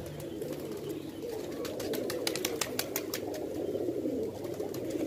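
Large flock of domestic pigeons cooing all together, with wing flapping and a quick run of sharp clicks about two to three seconds in.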